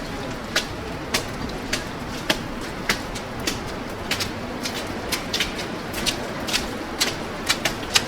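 Footsteps of a person walking on snow, a little under two steps a second, each step a short sharp strike, over a steady low hum of city traffic.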